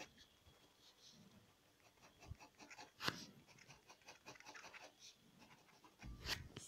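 Faint scratching of a pen nib on paper in short hatching strokes, with two sharper ticks, about three seconds in and near the end.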